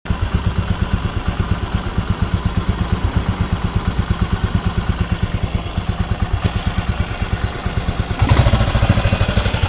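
Royal Enfield single-cylinder four-stroke engine idling with an even thump, about eight to nine beats a second. A hiss joins it past the middle, and the engine sound grows louder near the end.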